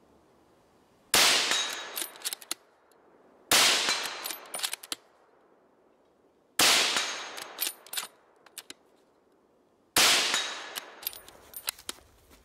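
Four gunshots a few seconds apart as steel-core surplus bullets strike a half-inch AR500 steel gong, each impact followed by a fading metallic ring and a few short clicks.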